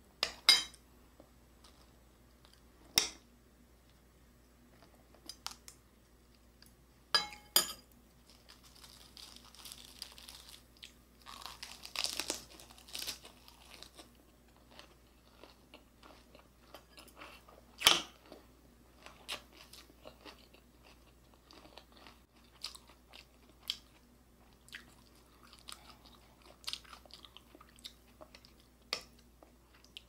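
A person chewing and crunching fried beef wrapped in fresh lettuce, with scattered sharp clicks and a denser stretch of crunching around ten to thirteen seconds in.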